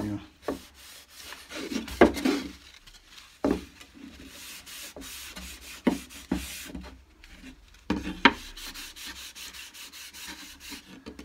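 Cloth rag rubbing tung oil into a wooden picture frame in irregular strokes, with a few sharp knocks as the frame is handled on the plywood workbench.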